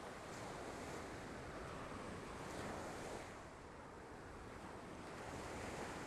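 Ocean surf washing onto a sandy beach, in two surges: the first builds to a peak about two and a half seconds in and falls away, the second swells near the end.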